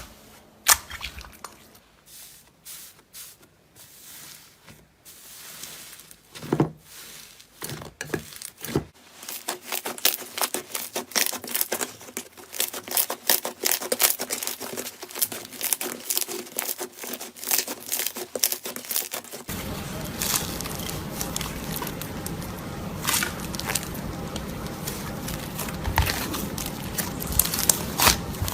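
Slime being pressed and worked close to the microphone, giving dense runs of crackling, crinkly clicks and pops. The clicks are sparse at first and grow denser twice, about nine seconds in and again about twenty seconds in.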